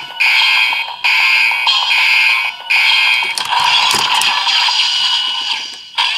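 DX Desire Driver toy belt playing its looping electronic standby tune through its small speaker after the Gigant Blaster buckle is set: an alarm-like beeping phrase repeating about once a second. A few sharp plastic clicks come about three and a half to four seconds in.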